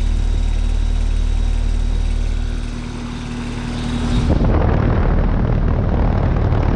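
Carrier Comfort 14 heat pump outdoor unit running in heat mode: a steady hum of compressor and condenser fan. About four seconds in, the hum gives way to a louder, rougher rush of air noise.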